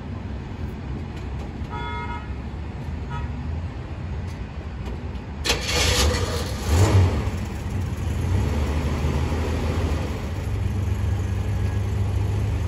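1975 Oldsmobile Starfire's V6 engine cold-starting: it catches suddenly about halfway through, revs once a second or so later, then settles into a steady idle. It fires right up with no skipping or hesitation. A short pitched tone sounds about two seconds in, before the engine starts.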